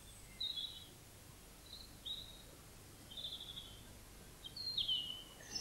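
Woodland birds calling: about five short, high chirps spread over a few seconds, one near the end falling in pitch, over a faint outdoor background hiss.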